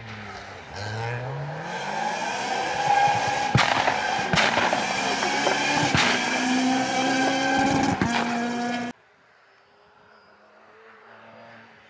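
Renault Clio rally car engine at full throttle, its pitch rising as it revs up through the gears, with several sharp cracks along the way. It cuts off suddenly near the end, leaving only a faint distant engine.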